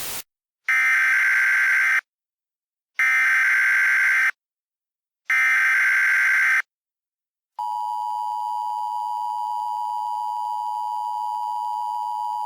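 Emergency Alert System tones. A brief hiss of static cuts off just after the start, then three identical screeching bursts of SAME header data, each about a second long and evenly spaced, mark the start of a new alert. After a short gap the steady two-tone EAS attention signal begins and holds.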